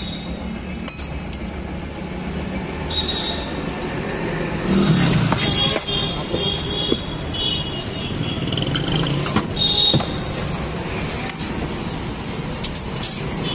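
Steady street traffic rumble, with scattered sharp clinks of a steel spoon against steel plates and a few short high ringing tones in the middle and about ten seconds in.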